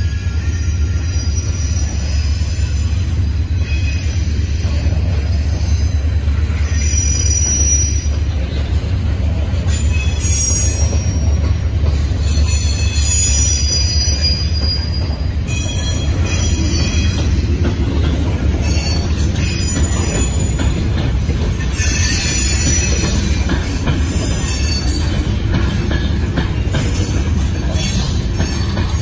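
Loaded stone hopper cars of a freight train rolling past with a steady low rumble of wheels on rail. High-pitched wheel squeal comes and goes several times over it.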